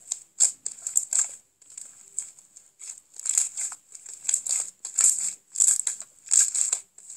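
Hands kneading and squeezing fluffy slime: short, irregular, crackly squishes, several a second, stopping and starting.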